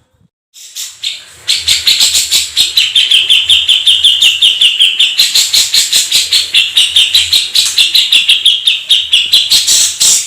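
Domestic canary singing a long rolling trill: rapid, evenly repeated high notes run on unbroken for about nine seconds, the pitch shifting gently up and down.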